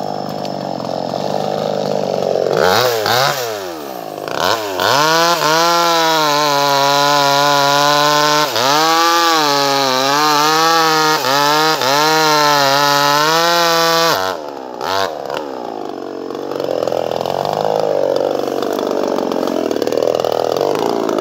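Chainsaw engine running, revving up a few seconds in to a high, steady pitch held for about nine seconds with brief dips, then dropping to a lower, wavering speed.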